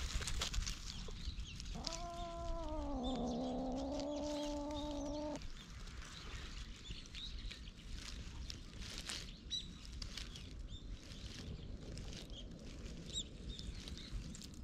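Crackling and rustling of dry grass and fur as a hand strokes a cat. About two seconds in comes one long pitched call that dips slightly and then holds steady for about three and a half seconds.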